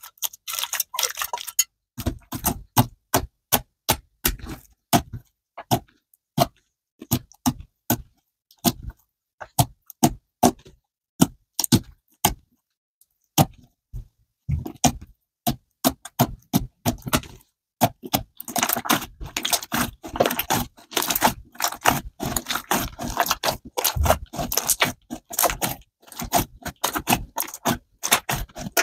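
Hands kneading, squeezing and stretching glossy glue-and-borax slime, giving a rapid string of sharp wet clicks and pops. There is a short pause about halfway through, then a denser run of crackling in the last third.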